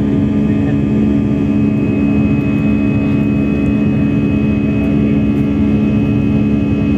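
Airliner jet engines heard from inside the cabin during the climb after takeoff: a loud, steady drone with a strong low hum, joined by a thin high whine about two seconds in. The uploader calls the engine noise abnormal.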